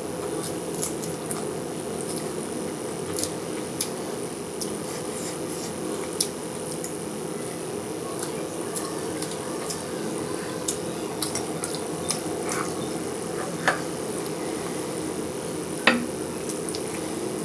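Close-up eating sounds: wet squishing of rice and curry being mixed and chewed, with scattered light clicks against the plate and two sharper clinks near the end, over a steady low hum.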